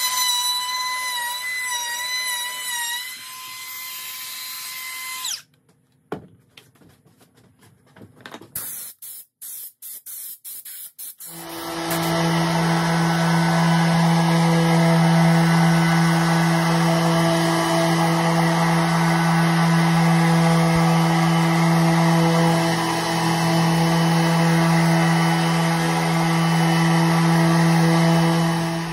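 A cordless random orbit sander running steadily on a hardwood cutting board, a steady hum with a rasping hiss, starting about 11 seconds in and lasting to the end. Before it, a cordless power tool whines at a high, wavering pitch for about five seconds, followed by a few seconds of near quiet with scattered clicks.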